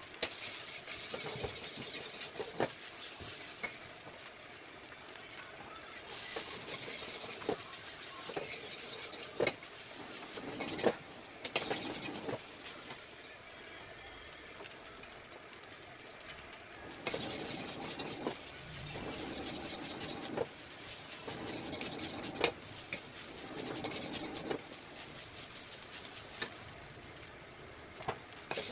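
Fried rice frying in a hot wok: steady sizzling that swells and fades in stretches, with sharp clanks and scrapes of a steel ladle against the wok now and then.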